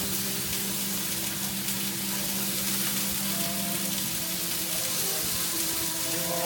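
Tiger prawns and salmon frying on a hot teppanyaki steel griddle, with a steady, even sizzle.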